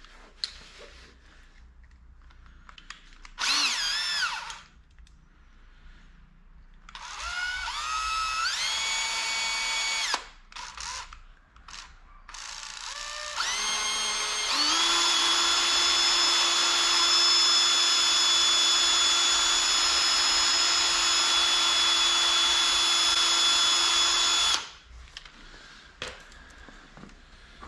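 Electric drill whining as it drills out a small plastic throttle-linkage bushing on a carburetor to widen the hole. A short burst comes first, then a run that steps up in speed, then a steady run of about ten seconds that stops suddenly.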